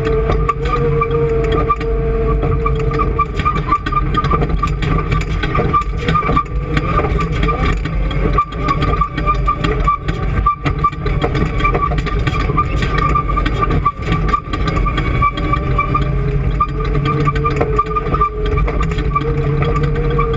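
An engine running steadily at a constant speed, with a continuous drone and a steady whine.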